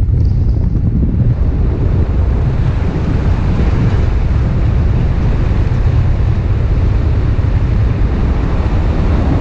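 Wind buffeting the microphone: a loud, steady, deep rushing with hiss above it and no let-up.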